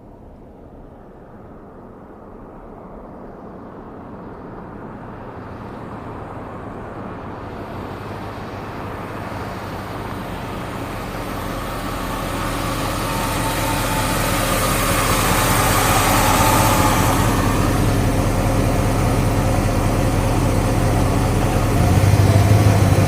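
1970s Chevrolet SS V8 car approaching, its engine and road noise growing steadily louder over about fifteen seconds, then running close by. The engine rumble deepens and swells near the end as the car arrives and comes to a stop.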